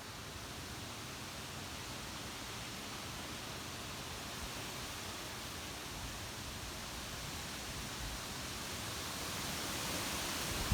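Storm wind rushing through trees with drizzle, a steady hiss that slowly grows louder.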